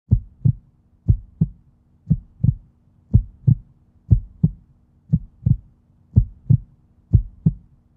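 Heartbeat, a steady lub-dub at about one beat a second, over a faint low hum.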